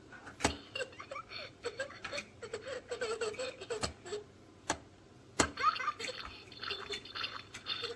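A toy playset's muddy-puddle piece, pressed several times with a sharp plastic click each time, its speaker playing splashing and giggling sound effects.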